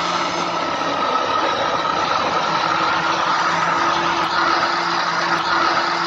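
Electric mixer-grinder running at full speed, blending cooked elephant yam and jaggery syrup in its juice jar: a steady motor hum with a high whine over the churning of the thick mix.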